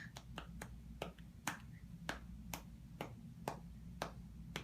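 An adult's hand patting a baby's back to bring up a burp, in steady, even pats about two a second.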